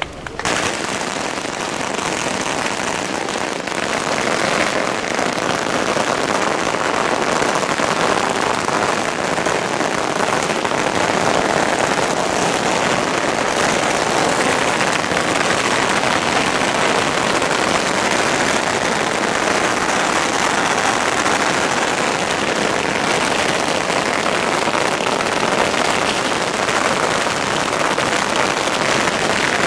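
A long string of firecrackers going off, a dense unbroken crackle that holds steady throughout.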